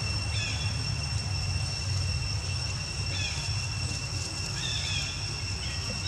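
Outdoor background noise: a steady low rumble under a constant high-pitched whine, with a few short high chirps near the start, in the middle and near the end.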